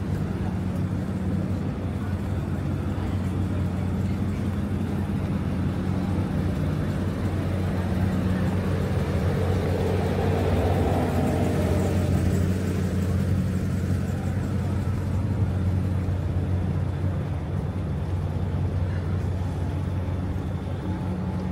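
Road traffic: a steady low engine hum, with a vehicle passing that swells louder about ten seconds in and fades again.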